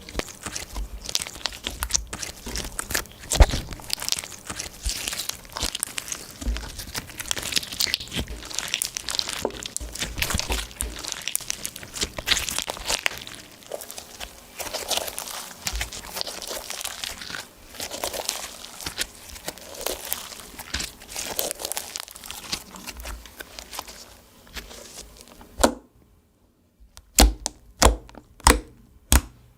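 Clear slime being worked and squeezed, giving a dense run of small crackles and pops. About four seconds before the end it stops suddenly, leaving a handful of separate sharp clicks.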